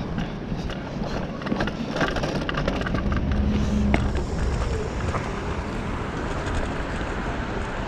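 Riding an electric scooter: a steady rumble of wind on the microphone and road noise, with a run of rattling clicks over the first four seconds or so.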